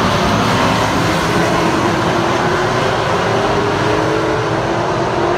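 Engines of a field of stock cars racing around a paved oval in a pack, a loud, steady blend of many engines, with one engine's pitch rising slowly as it accelerates.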